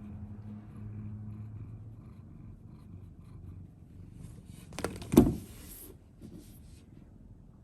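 A domestic cat purring in a low, steady rumble. About five seconds in there is a rustle and a sharp knock, the loudest sound.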